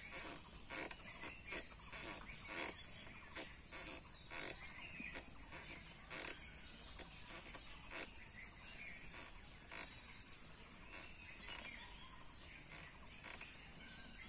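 Faint repeated creaks from a cloth sling swing's ropes working against its bamboo frame as a child swings, coming roughly once a second, over a steady high hiss.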